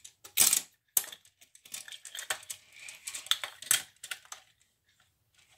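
Toy trucks and cars being handled: an irregular run of small clicks, knocks and rustles that thins out after about four seconds.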